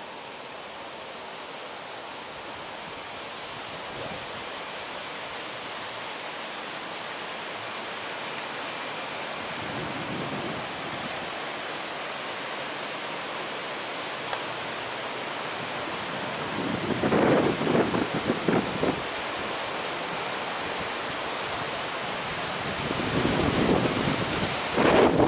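Steady rushing hiss of wind that slowly grows, with gusts buffeting the microphone about two-thirds of the way in and again near the end.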